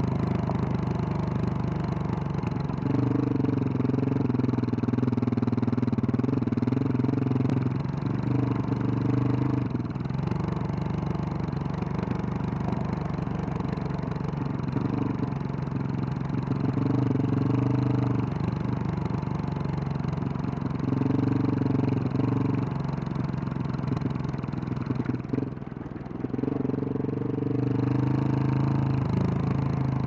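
2021 Husqvarna 701 Supermoto's single-cylinder four-stroke engine with a Wings exhaust, ridden at varying throttle. The engine note swells and eases several times, dropping lowest about five seconds before the end.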